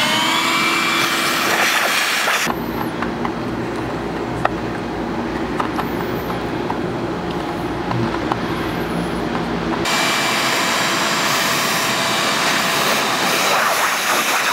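Shop vacuum running, its motor having just spun up, sucking metal drill shavings out of freshly drilled roof holes. A couple of seconds in, the sound abruptly drops to a lower steady hum with a few small clicks and scrapes. About ten seconds in, the higher steady tone of the vacuum returns.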